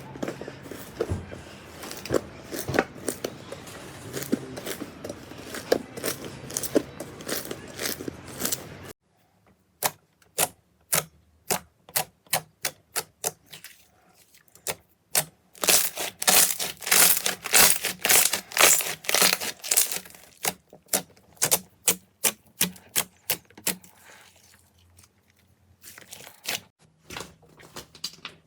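Slime being squeezed and poked by hand, making rapid sticky clicks and popping crackles. The sound changes abruptly about a third of the way in, then settles into separate pops with a loud, dense run of crackling near two-thirds through.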